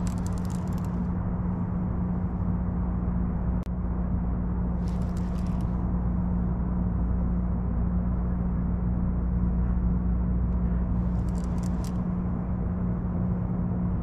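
A steady low mechanical hum, with three brief scratchy whirs from a baitcasting reel being handled and cranked as the line is reeled in, and a single click a few seconds in.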